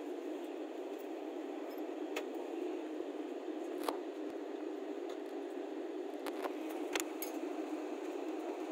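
Steady airliner cabin hum from the ventilation, with a few light clicks and taps about 2, 4 and 7 seconds in.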